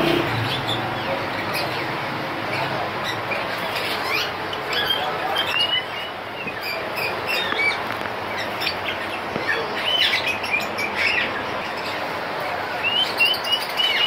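Many caged parrots and parakeets chirping and squawking in short calls over a steady background hiss, with a longer wavering whistle-like call near the end.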